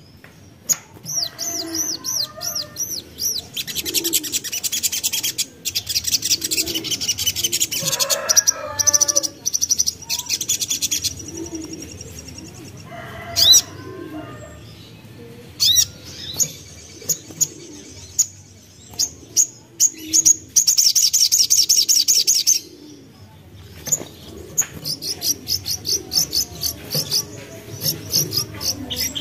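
A young sogok ontong, the little spiderhunter, calling in rapid high-pitched trills and sharp repeated chips, in several long bouts with pauses between them. Faint low cooing notes repeat about once a second beneath it.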